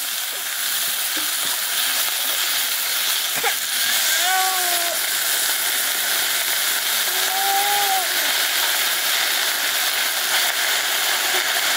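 Chopped leafy greens sizzling and steaming in a hot iron pan, a steady hiss.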